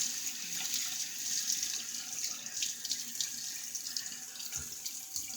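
Tap water running steadily into a bathroom sink, with irregular splashes as water is cupped up to wet the face.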